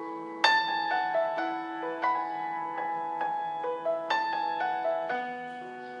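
Background piano music: a gentle melody of single struck notes over held lower notes, with a fuller chord about half a second in and another about four seconds in.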